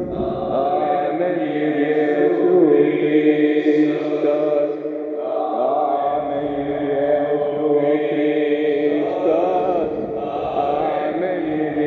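A voice chanting a long, drawn-out mantra in sustained held tones, rich in overtones, with the vowel slowly shifting. There is a brief pause for breath about five seconds in.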